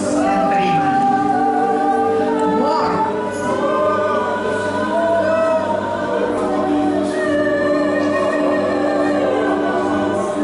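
Live church worship music: several voices singing a slow song over long, held keyboard chords.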